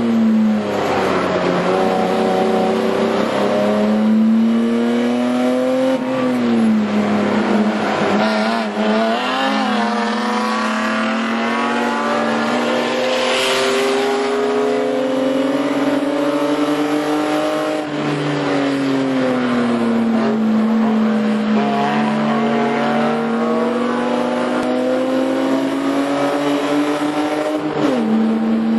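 BMW E30 race car's straight-six engine at racing revs, heard from inside the cabin. It climbs in pitch under throttle and drops back sharply at each gear change or braking zone, several times over.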